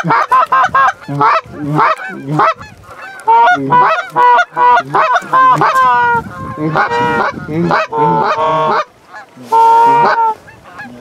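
Loud, close goose honks and clucks from hunters blowing Canada goose calls at an incoming flock: rapid clucking at first, then longer drawn honks, with one long loud honk near the end.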